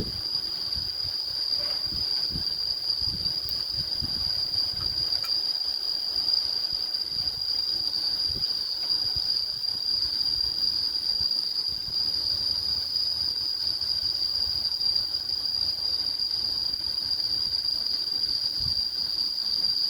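Insects, crickets or cicadas, chirring in one steady high-pitched tone, with a few soft low knocks in the first few seconds.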